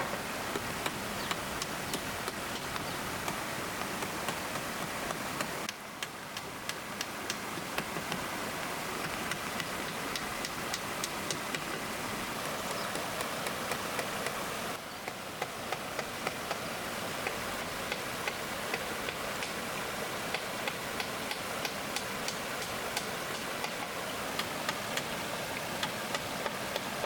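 Steady rain with many sharp, irregular drops ticking on a hard surface. The sound drops briefly twice and then builds back.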